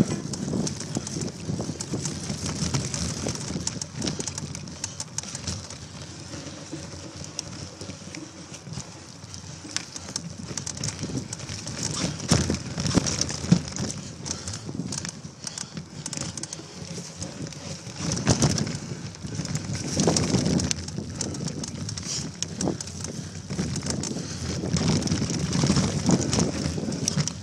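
Bicycle ridden fast along a leaf-covered dirt trail: tyres crackling over dry leaves and the frame rattling, with louder jolts over bumps several times.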